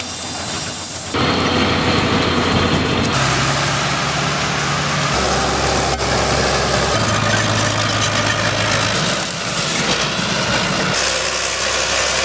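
Diesel engines of heavy tracked military engineering vehicles running, the engine note shifting abruptly every second or two from one vehicle to the next.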